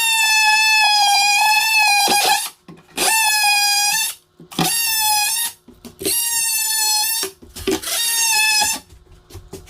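Oscillating multi-tool cutting into a countertop, a high steady whine coming in five runs of one to two seconds each with short pauses between.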